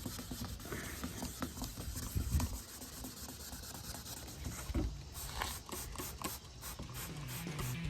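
Abrasive pad rubbed by hand over a plastic headlight lens: a run of light, irregular scratching strokes.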